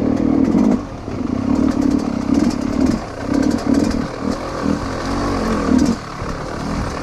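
Dirt bike engine revving in repeated short bursts as the throttle is opened and closed, with light clicking and clatter over it.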